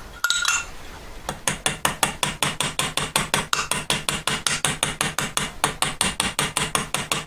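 Small jeweller's hammer tapping the end of a silver hinge rivet pin, a rapid steady run of light metallic taps, about six or seven a second. The pin is being spread slowly into a domed rivet head. A single clink comes just after the start, before the run of taps begins about a second in.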